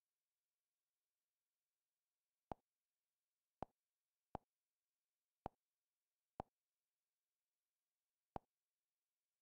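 Six short, quiet clicks at uneven gaps of about a second, against dead silence: the Google TV interface's navigation sound as the remote moves the highlight from tile to tile in a menu.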